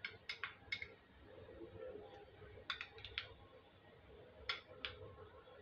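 Metal spoon clinking against a small glass container while scooping ginger-garlic paste and tapping it off onto the chicken: three short runs of light, sharp clinks, near the start, about three seconds in, and about four and a half seconds in.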